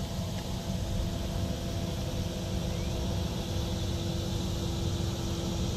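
Drainage pumping station pumps running: a steady low mechanical drone with a constant hum, unchanging throughout.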